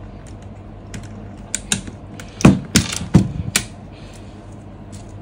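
Plastic clicks and clacks from the keys of a Keychron K11 Pro low-profile mechanical keyboard being worked by hand. A few light clicks come first, then four sharp clacks in quick succession, from about two and a half to three and a half seconds in.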